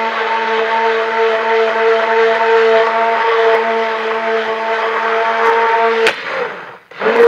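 Stick blender motor running steadily in raw soap batter, pulsed to thicken the batter from light trace toward a pudding-like trace. It stops about six seconds in and starts again just before the end.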